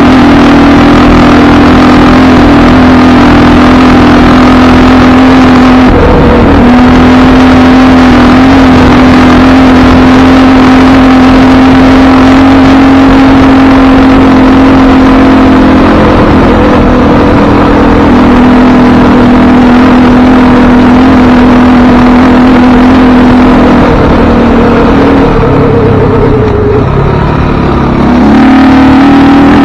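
Engine of a handlebar-steered off-road vehicle running loud and steady while riding a sandy trail. Its note breaks briefly about six seconds in, and near the end it falls and wavers for a few seconds before returning to its steady pitch.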